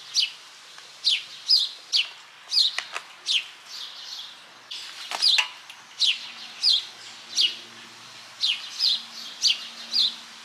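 A songbird calling over and over, each call a short note sliding down in pitch, about two a second.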